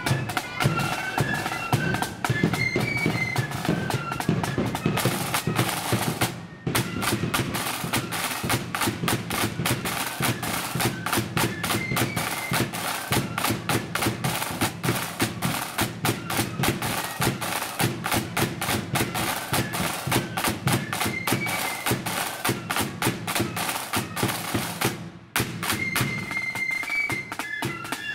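Marching flute band playing a tune over fast snare drums and bass drum. The drumming is dense throughout and the flute melody is clearest at the start and near the end. The music breaks off briefly about six seconds in and again shortly before the end.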